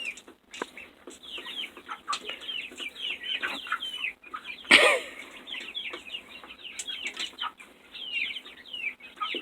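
A flock of chickens calling while feeding: many short, high, falling peeps overlapping, with one louder call about five seconds in.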